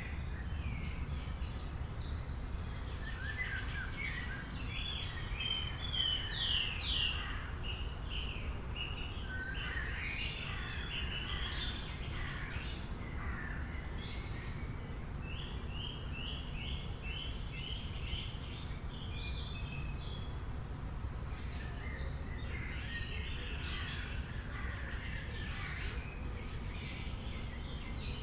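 Several small birds chirping and trilling in short overlapping phrases over a steady low rumble of background noise.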